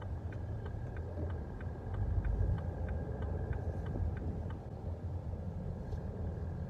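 Steady low rumble of a car, with a faint light ticking about three times a second over it.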